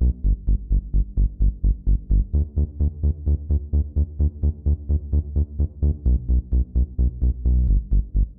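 Background electronic dance music: a fast, even pulsing synth beat, about five pulses a second, heavy in the bass.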